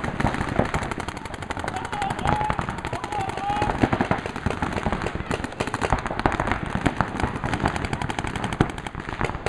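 Paintball markers firing rapid, overlapping strings of sharp pops, several players shooting at once.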